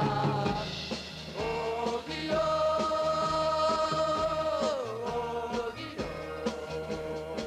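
Male vocal group singing together over a live band with drums, holding one long note from about two seconds in and then sliding down together about five seconds in.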